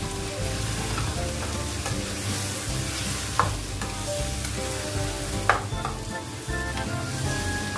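Squid sizzling in soy sauce in a non-stick frying pan while a spatula stirs it, the spatula knocking sharply against the pan twice, about halfway through and again two seconds later.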